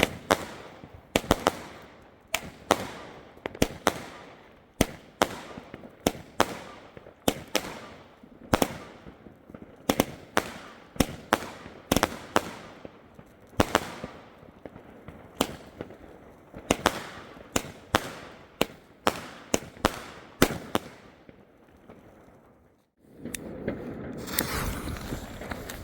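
Consumer firework battery (cake) firing: a long series of sharp bangs, about two a second, some in quick pairs, each with a short crackling tail. It stops about twenty-two seconds in, and a steady noisy outdoor background takes over near the end.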